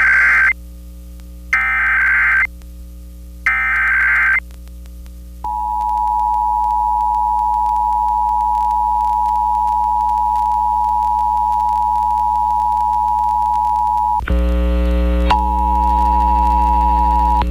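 Emergency Alert System test transmission: three short bursts of screeching SAME header data tones, about two seconds apart, followed by the steady two-tone attention signal. About fourteen seconds in, the attention tone gives way to a loud electrical hum and then returns over it.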